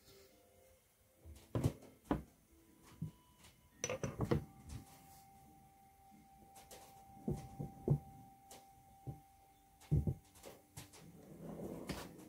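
Irregular knocks and clunks, like hard objects being handled and set down, with a faint steady tone through the middle.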